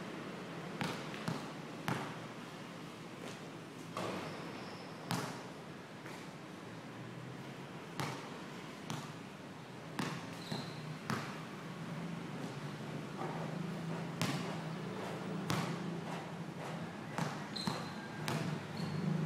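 A basketball dribbled on a concrete court: separate bounces at uneven spacing, sometimes two close together.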